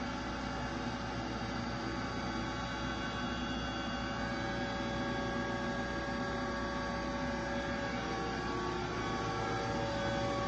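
Takisawa TCN-2100 L3 CNC lathe running under power: a steady machine hum made of several constant tones, unchanging throughout.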